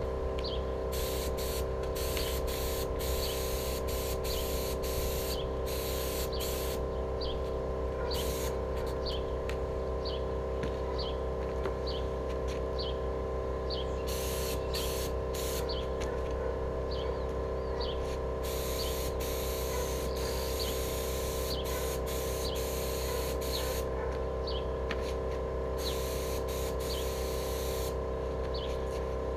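HVLP paint spray gun on an air hose spraying enamel, a hiss that starts and stops with each trigger pull, many short passes in a row, over a steady hum.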